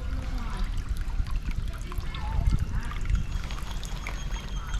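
Water trickling and running as a clogged culvert drains, with a steady low rumble under it.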